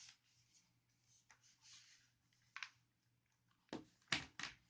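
Laptop being handled: faint rustling, then a click and a few sharper plastic knocks near the end as the machine is turned over and set down.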